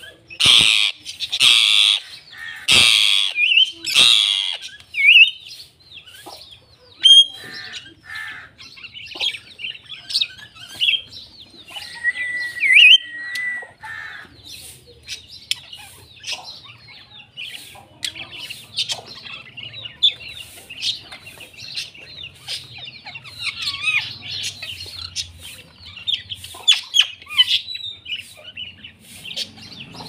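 Caged parrots calling: four loud, harsh squawks in the first few seconds, then continual high chirping and twittering from small parrots such as lovebirds, with a short whistled note about twelve seconds in.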